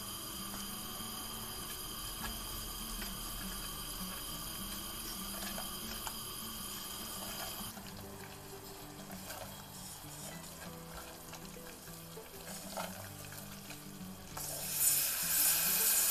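Flour roux sizzling in oil in a stainless steel saucepan, stirred and scraped with a silicone spatula, under quiet background music. About 14 seconds in, milk is poured into the hot roux, making a louder hissing splash.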